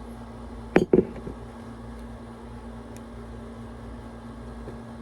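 Two quick clinks from a beer container being handled while drinking, about a second in, over a steady low hum.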